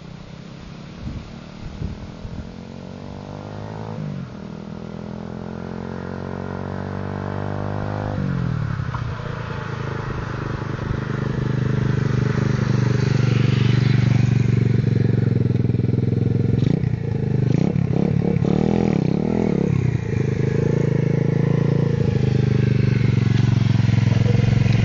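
A 125cc pit bike's single-cylinder four-stroke engine revving up through the gears, its pitch climbing and then dropping at each shift, twice, about four and eight seconds in. It grows steadily louder as the bike approaches, then runs loud with its pitch wavering up and down.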